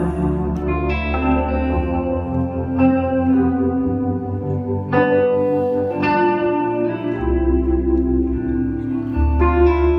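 Live slow blues electric guitar lead on a sunburst Les Paul-style guitar: a few long, sustained notes ringing out with reverb and echo, with new notes struck every second or two. Held low bass and keyboard notes sit underneath.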